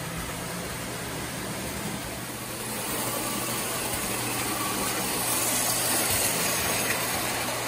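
1934 Lionel electric toy work train running on three-rail tinplate track: a steady whirring rumble of motor and wheels over a constant low hum. It grows louder from about three seconds in and is loudest as the train passes close, around five to six seconds in.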